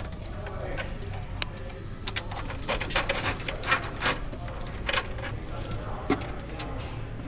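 Scattered light clicks and knocks of parts and fittings being handled by hand under the hood, over a steady low hum.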